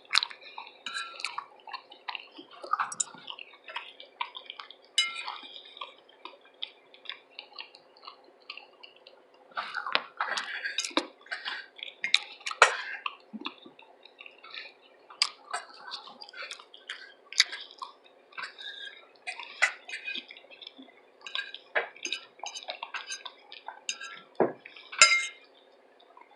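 Close-miked eating sounds: wet chewing and lip smacking, with scattered sharp clicks of a utensil against a plate.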